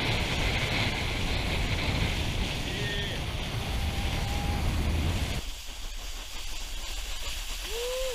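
Water rushing and spraying, with wind buffeting an action camera skimming along a lake's surface behind a cable-towed wakeboard. About five seconds in, the rushing noise drops off sharply. Near the end a short rising-then-falling tone is heard.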